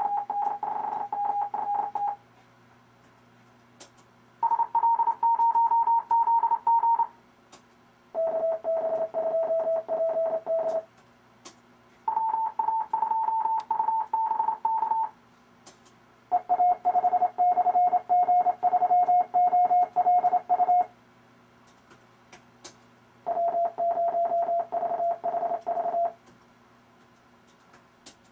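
RufzXP Morse code trainer sending amateur radio callsigns as computer-generated CW tones: six fast runs of dits and dahs, each callsign at a different pitch, with pauses of one to two seconds between them. Faint clicks fall in the pauses.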